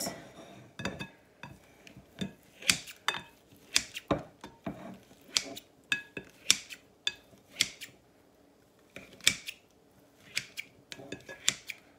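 Pampered Chef salad choppers chopping cold cooked chicken in a glass bowl: irregular snips and clacks as the scissor-like blades close and knock against the bowl, about one or two a second, with a brief lull about two-thirds of the way through.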